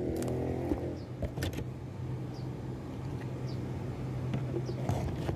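A steady low mechanical hum, like an engine or motor running, with a few short knocks from the phone being handled.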